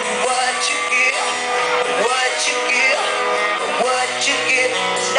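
Hard rock band playing live, with a singer's voice over guitars, recorded from within the crowd.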